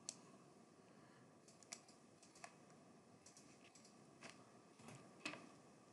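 Faint, scattered clicks of a computer keyboard and mouse, a handful of separate taps spread over several seconds.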